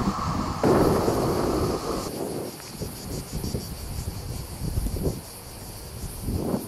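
Rumble of a passing train, cut off about two seconds in. After it, a steady high-pitched buzz of cicadas with low gusts of wind buffeting the microphone.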